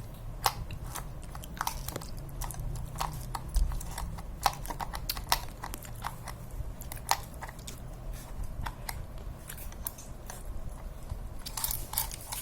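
Irregular small clicks and taps of metal parts being handled and fitted on a bicycle gear hub, over a low steady hum.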